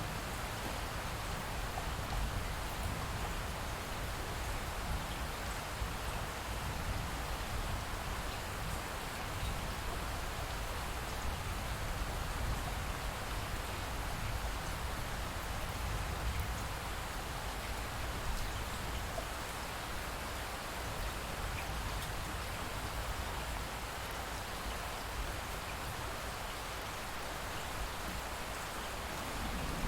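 Light rain falling steadily, an even hiss with no single drops standing out.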